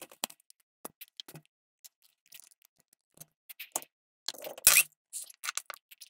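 Short, irregular scraping strokes on an instant scratch-off lottery ticket, as the coating is scratched away. The strokes come more often and louder from about four seconds in.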